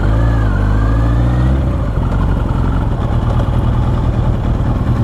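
Motorcycle engine running, heard through a helmet-mounted microphone: its pitch rises over the first second and a half, then it settles into a rougher, lower rumble.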